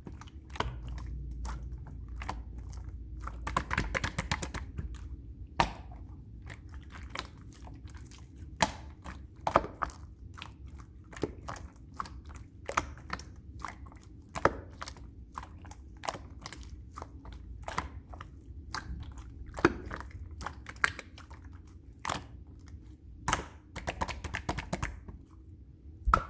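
Vanilla cream slime being squished and pressed by hand: irregular sharp pops and clicks, a few a second, with soft squishing between them.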